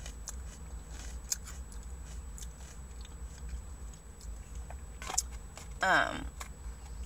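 A person chewing food, with many small wet clicks and crunches of the mouth. About six seconds in there is a short hummed voice sound.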